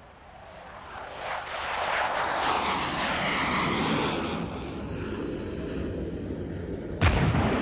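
F-16 fighter jet taking off, its engine noise swelling over the first couple of seconds into a loud roar with a sweeping hiss as it passes, then easing off. A sudden loud bang about seven seconds in.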